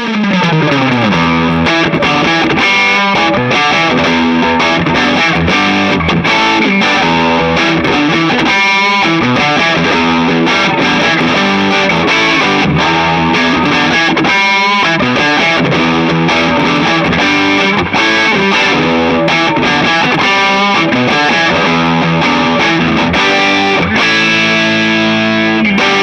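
Gibson ES-335 semi-hollow electric guitar played through distortion, a continuous riff that opens with a downward slide.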